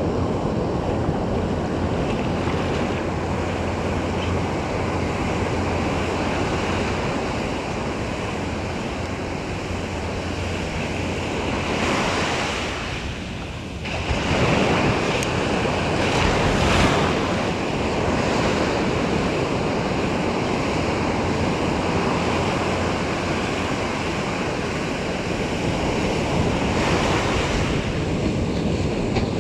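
Ocean surf breaking and washing up the beach in a steady rushing wash, swelling louder twice about midway, with wind buffeting the microphone.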